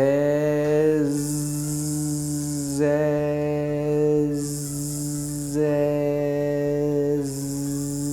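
A man's voice holding one steady hum and three times turning it into a buzzing "zzz" by adding the hiss of the tongue tip, each buzz about a second long: the voiced /z/ sound alternated with plain voicing.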